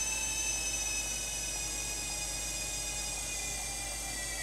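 The iFlight Nazgul 5's XING-E 2207 2750KV brushless motors spin slowly during a bench motor test, making a steady high-pitched whine. The pitch drifts slightly down as the motor throttle value eases from about 1080 to 1067.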